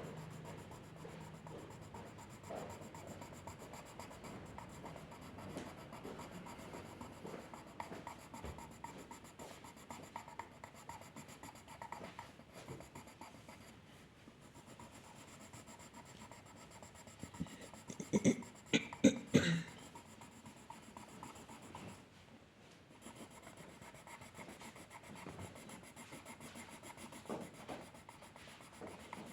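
Drawing strokes on paper, a steady soft scratching and rubbing, with a short burst of several louder sounds a little past halfway.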